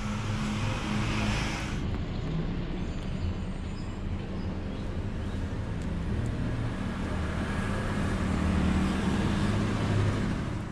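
Steady low rumble of motor-vehicle traffic, with an engine hum that grows somewhat louder about eight seconds in.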